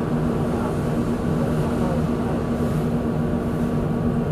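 1988 Duewag B80D light-rail car running, heard from inside: a steady rumble of wheels on rail with a hum of several held tones from the traction equipment.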